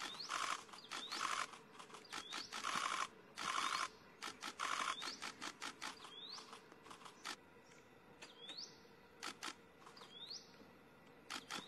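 Birds calling: a short high whistle rising in pitch, repeated about once a second, with harsh rasping calls in quick succession during the first half and again near the end.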